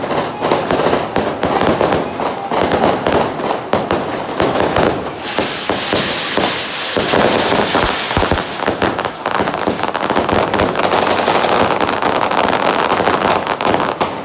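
Fireworks and firecrackers going off in a rapid, unbroken crackle of pops. A loud hissing rush joins in about five seconds in and carries on for several seconds.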